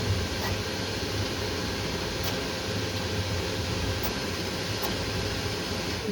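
Steady whir of running fans with a low hum underneath and a few faint ticks.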